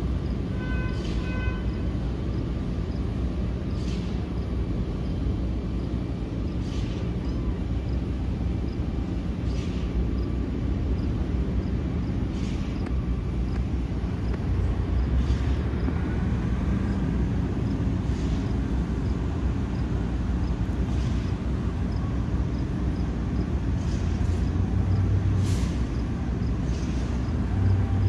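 A kitten gives short faint hisses every couple of seconds and one brief high mew about a second in, over a steady low rumble.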